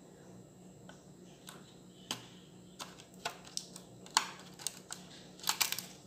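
Irregular light plastic clicks and taps from fitting the flat ribbon cable of a microwave's membrane keypad into its connector on the control board, about a dozen spread unevenly, with a quick cluster near the end.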